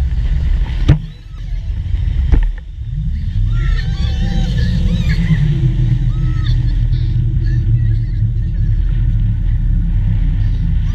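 Wind rushing over the microphone as a steady rumble, with the tow boat's engine running under it. Two sharp knocks come in the first few seconds, and from about three seconds in the riders squeal and laugh for several seconds.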